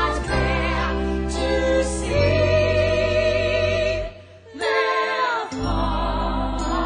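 Operetta song: a high voice singing with vibrato over sustained accompaniment. Past the middle the music briefly drops away, then the voice comes back with a falling phrase.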